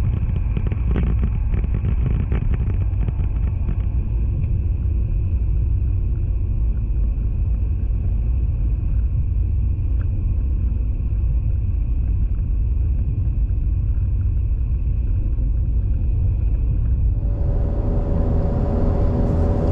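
Steady rumble of road, tyre and engine noise from inside a moving car's cabin. Near the end the noise turns hissier, with a steady hum joining it.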